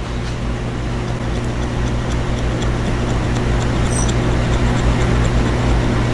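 Loud, steady whirring of a small electric motor with a low hum, over faint high clicks.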